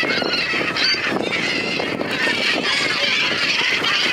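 A large flock of gulls calling over and on the water, many squawking calls overlapping without a break, mixed with wingbeats and splashing as the birds crowd and land.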